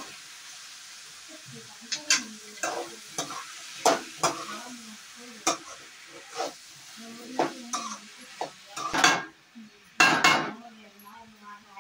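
Metal spatula scraping and clinking against an aluminium kadai as potato pieces with onion and tomato are stirred and fried, over a steady sizzle. The strokes come at irregular intervals, with two longer, louder scrapes near the end.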